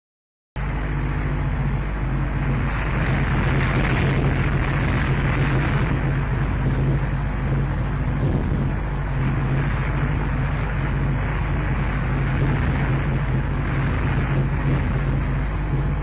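Steady rushing wind noise on an outdoor microphone, swelling for a few seconds and easing again, over a constant low electrical hum. The sound drops out completely for about half a second at the start.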